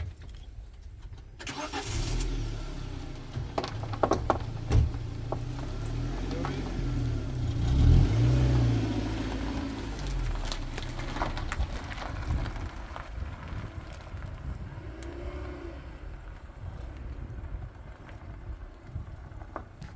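A vehicle engine starts about a second and a half in and keeps running with a low rumble, with scattered knocks and rattles over it.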